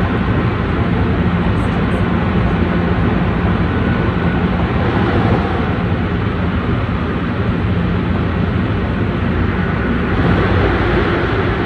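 Tsukuba Express electric commuter train heard from inside the passenger car while running at high speed, around 130 km/h: a steady rush of wheels on rail and running gear with a low hum underneath. It grows a little louder and brighter near the end.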